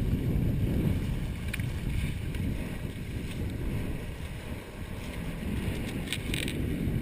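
Wind buffeting the microphone over the rush of water along the hulls of a Hobie 18 catamaran under sail, with a few brief faint ticks near the end.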